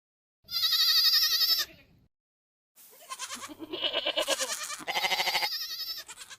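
Goat bleating: a high, quavering bleat about half a second in, then after a short pause a longer quavering bleat that ends on a higher cry.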